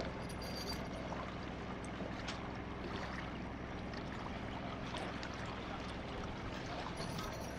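An engine running steadily under a constant wash of moving water, with a few brief high clinks near the start and near the end.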